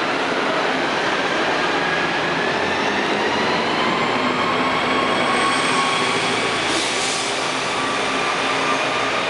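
Nova Bus RTS-06 transit bus with a Detroit Diesel Series 50 engine and Allison transmission pulling away from a stop and accelerating past close by, a whine climbing steadily in pitch over a heavy engine rumble.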